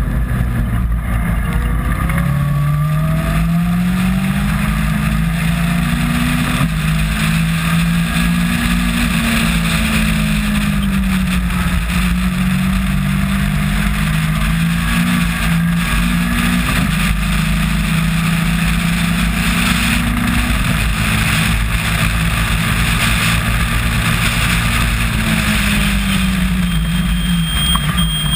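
Caterham R300 Superlight race car's four-cylinder engine heard onboard at racing speed, its pitch climbing and dropping back several times through the gears and falling near the end. A heavy rush of wind and tyre spray from the rain-soaked track runs under it throughout.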